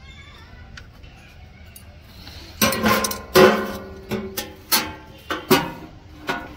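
Metal being struck with a hammer: about ten sharp blows at an uneven pace, each with a short ringing note, starting about two and a half seconds in.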